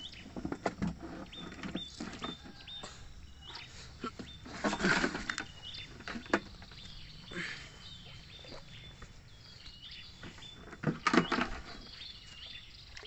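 Footsteps and scuffing on a dirt and litter riverbank with handling noise, loudest in two bursts about five and eleven seconds in, over repeated short high chirps in the background.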